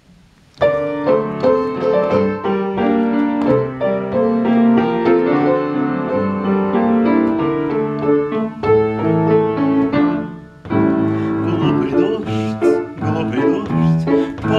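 Upright piano playing a song's introduction, starting about half a second in, with a short break just after ten seconds before the playing resumes.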